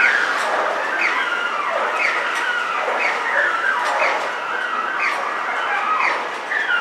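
Motorised roll-up grille shutter opening with a strange repeating squeal, a falling tone about once a second.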